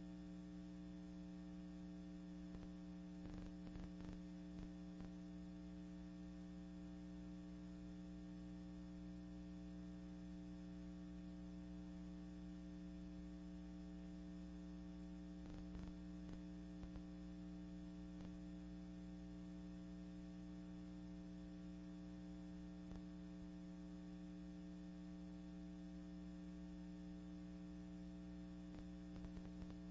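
Steady low electrical mains hum with a faint hiss and a few faint clicks: the noise floor of a silent archival film transfer, with no other sound.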